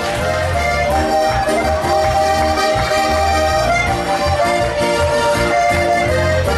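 Live Alpine folk-pop band music led by a Steirische Harmonika (diatonic button accordion) playing a held melody, over a steady beat of bass notes and short offbeat chords.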